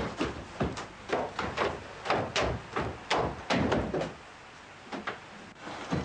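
A rapid, irregular series of knocks and thuds, roughly two or three a second, with a brief lull a little past the middle.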